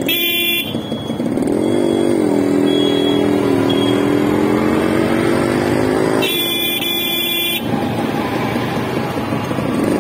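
Motorcycle engine running as the bike rides through traffic, its note rising briefly about a second and a half in and then holding steady. A horn beeps briefly at the very start and again for over a second about six seconds in.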